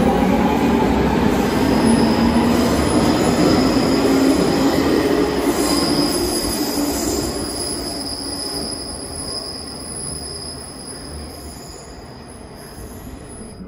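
Milan Metro Line 1 train pulling out of an underground station: loud rumble of wheels on the rails with a thin, high wheel squeal. It fades steadily over the second half as the train runs off into the tunnel.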